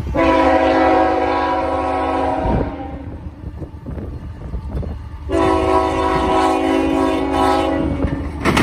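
Union Pacific GE ES44AH (C45AH) locomotive's multi-note air horn sounding two long blasts. The first lasts about two and a half seconds, the second starts about five seconds in and lasts about three, and a third begins right at the end, all over the low rumble of the passing train.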